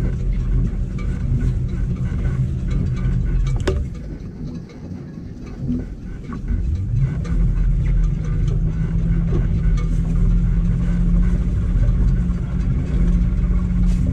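Electric boat motor running under the newly installed EZKontrol controller with a steady low hum. It drops away for about two seconds, then spins back up with a rising whine and holds steady, as the controller is tested in forward. A single click comes just before the drop.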